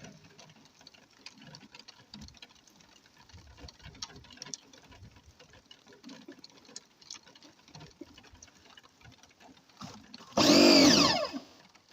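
Quiet clicks and knocks of handling, then near the end a motor runs for about a second, a loud whine that falls in pitch as it cuts off.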